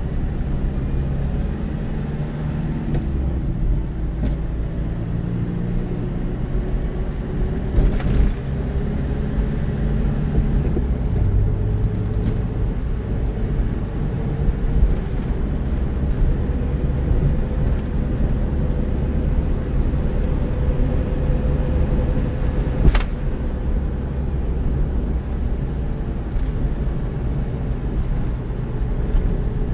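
Car driving on a city road, heard from inside the cabin: a steady engine and tyre rumble with an engine hum that slowly rises in pitch through the middle. Two sharp knocks break through, a small one early and a louder one about three-quarters of the way through.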